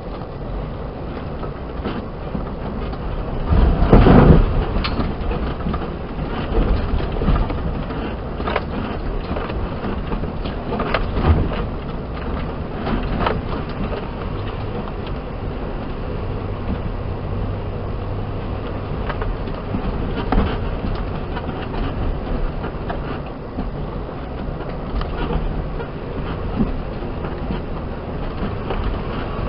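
Suzuki Jimny 4x4 driving slowly over a rough, rocky track: steady engine and running rumble with scattered knocks and jolts from the body and suspension, the biggest about four seconds in.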